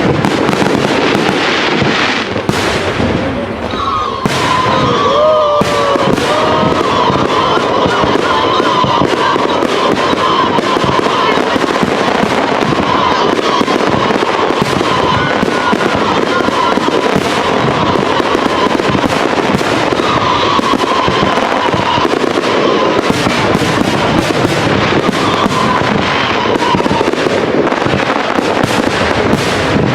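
Fireworks display at full intensity: a dense, continuous barrage of crackling and bangs, with a wavering whistle-like tone running through most of it.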